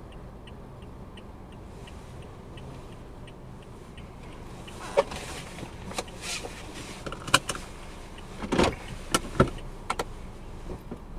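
Car cabin hum from a slow-moving car: a low, steady engine and road noise. An even, quick ticking runs through the first few seconds, and from about five seconds in there are several sharp clicks and knocks.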